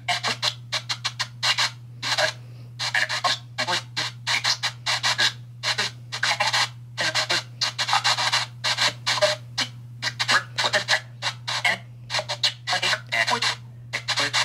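Smartphone spirit box app sweeping rapidly through FM radio stations: choppy bursts of static and broken snippets of broadcast voices, several a second, over a steady low hum.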